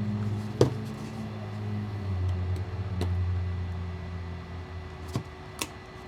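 Sharp clicks of a razor blade prying at the glued plastic shell of a camera battery pack: four or so, the loudest about half a second in. Under them a low steady hum drops in pitch about two seconds in and stops about five seconds in.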